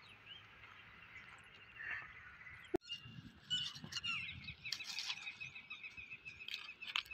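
Dry palm fronds crackling and rustling under a dog's paws as it noses about, starting about three seconds in. Over it, high chirping calls repeat quickly and evenly.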